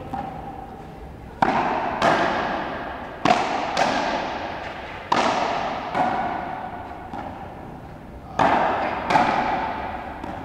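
Frontenis rally: a rubber ball struck by rackets and smacking the fronton wall, about eight sharp hits, mostly in pairs about half a second apart. Each hit rings out in a long echo through the hall.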